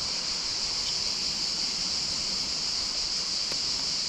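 Steady, high-pitched chorus of insects chirring, with a soft hiss beneath it.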